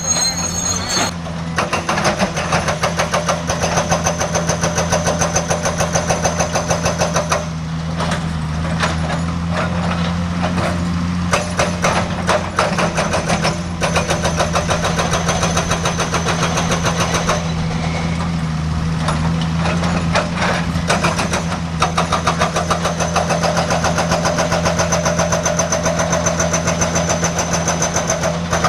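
Excavator-mounted hydraulic breaker hammering in a rapid, even rhythm over the diesel engine's steady running. The hammering pauses briefly twice while the engine keeps running.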